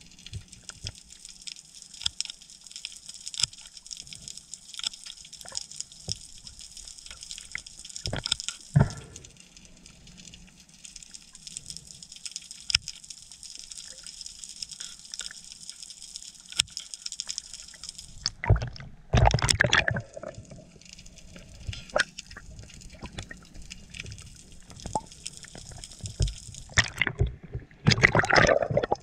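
Underwater sound picked up by a camera in the sea: a steady high crackle of many small clicks. Two loud bursts of water noise stand out, one at about 19 seconds and one near the end as the camera breaks the surface, splashing.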